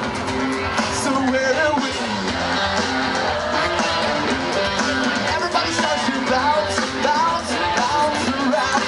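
Pop-punk band playing live through a stage PA: electric guitars, drums, keyboards and a sung lead vocal, heard from inside the audience.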